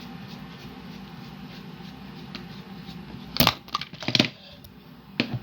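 A camera falling over and clattering down: two loud knocks with a short rattle, a little over three seconds in and again about a second later, over a low steady hum.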